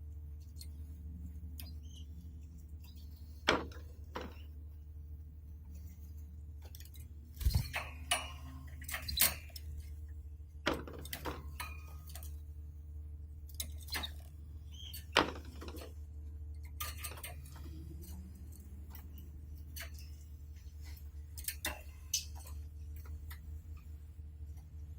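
Canaries moving about the cage: scattered light taps and clicks, a few in quick clusters, from the birds hopping on perches, pecking and working the nest, over a steady low hum.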